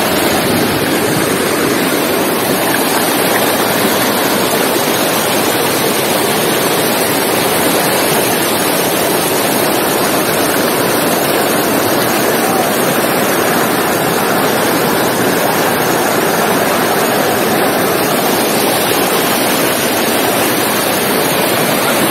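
Water pouring over a dam spillway and rushing across the concrete apron in a loud, steady rush: the dam is overflowing with floodwater after heavy rain.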